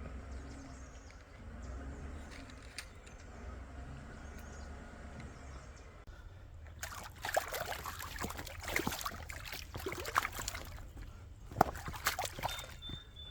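Water sloshing and lapping under a low rumble of wind, then heavy, irregular splashing that starts about seven seconds in and keeps on in bursts.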